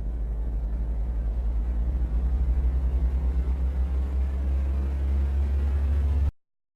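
A deep, steady low rumble that grows louder about two seconds in, then cuts off abruptly about six seconds in.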